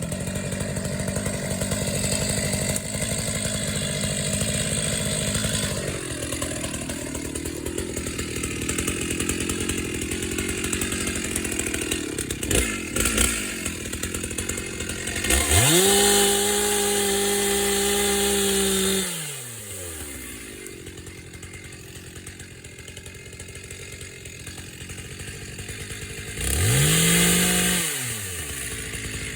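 Two-stroke chainsaw cutting into a dead wattle trunk, its engine pulled down under load for the first several seconds. It then revs up to a high steady scream twice, first around the middle and again near the end, and drops back to a lower, quieter run in between.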